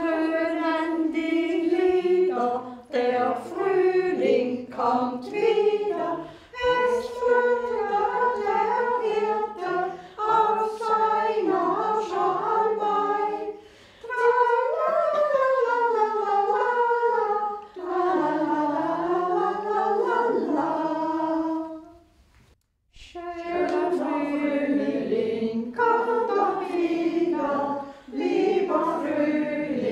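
A small group of elderly people singing a song together, phrase by phrase, with a brief pause about three-quarters of the way through.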